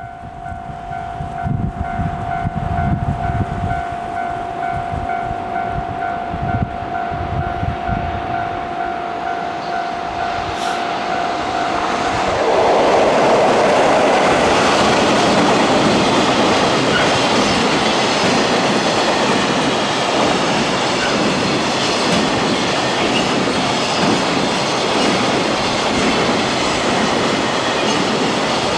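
Japanese level crossing's warning bell ringing, a steady repeated kan-kan tone. About twelve seconds in, a JR Kobe Line train passes over the crossing, and the loud, steady rush of its wheels on the rails drowns the bell for the rest.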